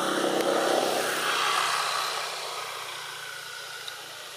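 A motor vehicle passing by, louder over the first two seconds and then fading away.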